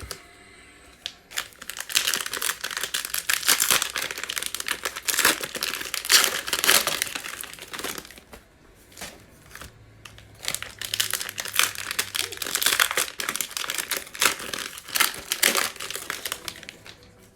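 Cellophane wrapping on trading-card cello packs crinkling and tearing as the packs are pulled open by hand, in two long bouts with a short lull in the middle.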